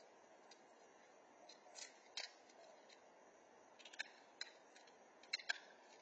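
Faint, scattered short clicks and rasps, about six of them, from a man handling a discarded refrigerator and pulling the tape off its drawers, over a steady faint hiss.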